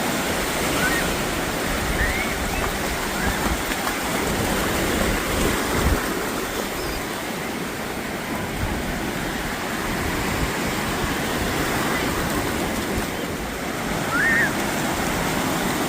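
Ocean surf washing onto a beach: a steady rushing wash, with a few faint short high chirps over it.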